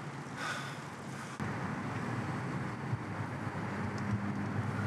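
Outdoor background noise with wind on the microphone. About a second and a half in, the level steps up and a steady low hum joins and holds.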